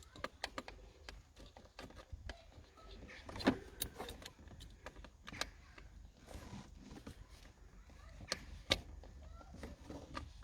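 Metal clicks and clinks of a hand tool working the 8 mm bolts on a Ford Mondeo Mk4 1.8 TDCi's thermostat housing, with a few sharper knocks as the bolts are cracked loose.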